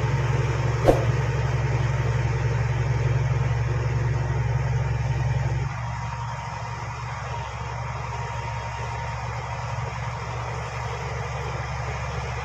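Bulldozer's diesel engine running steadily under load, with a single sharp metallic clank about a second in. About halfway through, the low engine drone abruptly drops to a quieter level.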